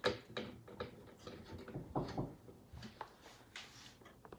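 Irregular small clicks, knocks and rustles of computer parts being handled.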